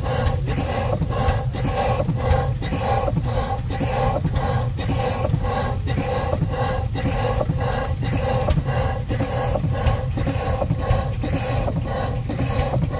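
Pre-1875 Woodbury, Booth & Co. horizontal steam engine running steadily, with an even beat of hissing exhaust steam about one and a half times a second over a constant low rumble and regular mechanical clicks.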